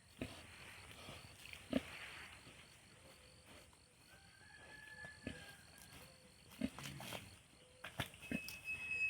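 Pigs grunting, with a few sharp knocks scattered through it.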